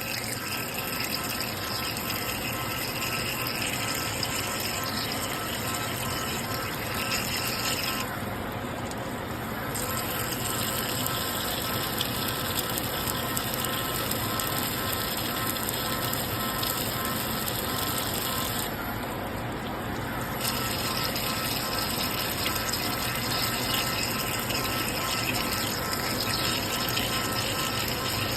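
EDM machine cutting: a steady hiss and gush of water flushing over the cut, with a pump running and faint steady machine tones. The high hiss drops out briefly twice.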